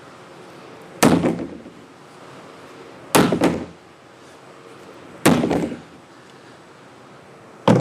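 Sledgehammer striking a 28-gallon cross-linked polyethylene tank: four heavy blows about two seconds apart, each a sharp bang with a brief ring after it.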